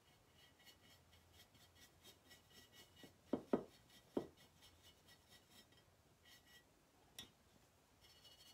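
Faint scratching and rubbing of a stiff chip brush working acrylic paint onto a ceramic piece, with a few light taps a little past three seconds in and one more about seven seconds in.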